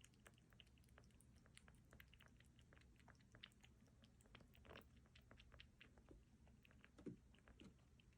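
Faint, quick little clicks and crunches of a pet bushbaby (galago) chewing, with a single louder knock about seven seconds in.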